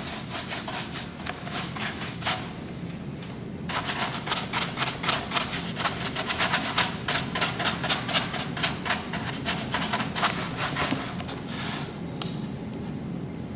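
Paintbrush scrubbing paint onto a dimpled, textured craft pumpkin in rapid back-and-forth strokes, several a second. The strokes pause briefly about two seconds in and stop about eleven seconds in.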